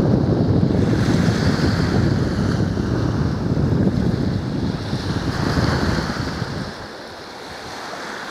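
Strong gusty wind buffeting the microphone, a heavy rumble that drops away sharply about two-thirds of the way in, over the steady hiss of small waves washing onto a sandy beach.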